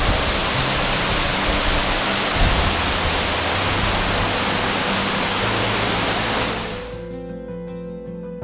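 Steady heavy rush of water falling close by from the Cloud Forest's tall indoor waterfall. It fades out about seven seconds in as gentle acoustic guitar music takes over.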